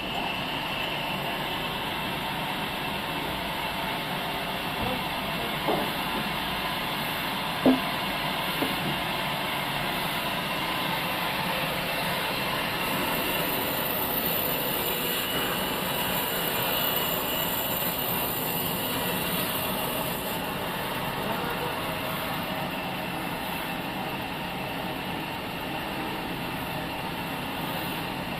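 Sawmill machinery running steadily, with a few short knocks, the sharpest about eight seconds in.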